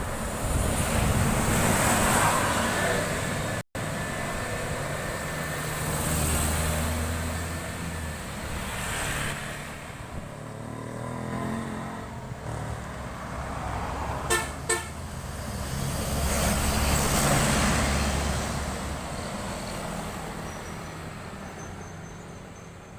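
Highway traffic, buses among it, passing one vehicle after another, each engine and tyre noise swelling and fading away. About two-thirds of the way through come two short horn toots in quick succession.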